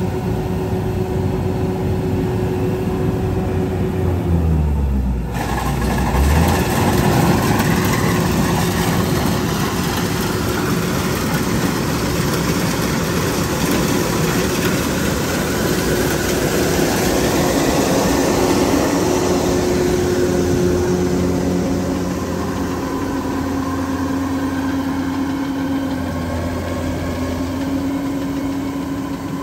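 Kubota DC-93 diesel combine harvester running as it cuts and threshes rice: a steady engine and thresher drone. About five seconds in the sound dips briefly, then runs louder.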